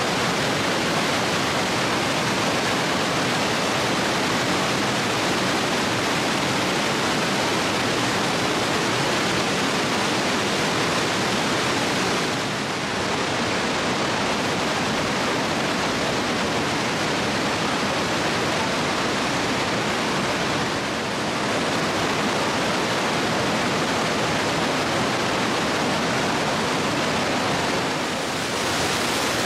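Steady rushing water, an even noise with no rhythm or distinct events, dipping briefly three times.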